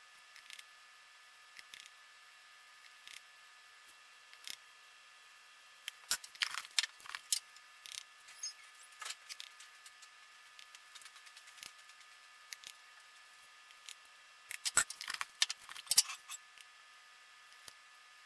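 A small metal spoon clicking and tapping against jars of dye powder as the powder is scooped out and spread over the shirt. The taps are scattered, with two busier clusters, about six seconds in and again around fifteen seconds.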